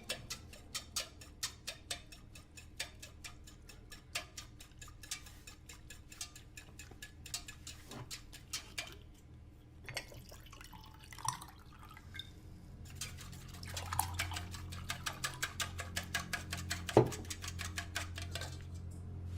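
Kitchen sink sounds: a run of quick light clicks and drips, about two or three a second, thinning out partway through. A low steady hum comes up in the second half, and one louder knock sounds near the end.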